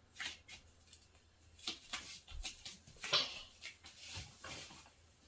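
Scattered light rustling and soft knocks, irregular and a second or so apart, with one louder scuff about three seconds in. This is typical of a child moving about on and against an aerial yoga hammock.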